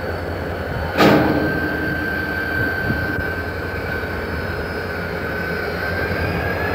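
Indiana Harbor Belt diesel road-switcher locomotive rolling slowly past with its engine running steadily. There is a sharp bang about a second in, and a thin high whine that rises slightly near the end.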